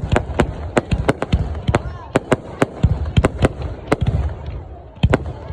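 Fireworks going off in quick, irregular succession: many sharp bangs, several a second, over a low rumble.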